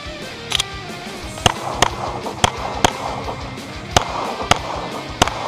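Pistol shots fired in a rapid course of fire, about eight, mostly in quick pairs, over background music.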